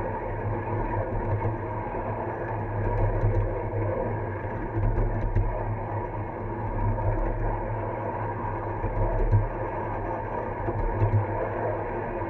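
Ride-on miniature railway train rolling along its track: a steady rumble of wheels on rail, with a few light clicks now and then.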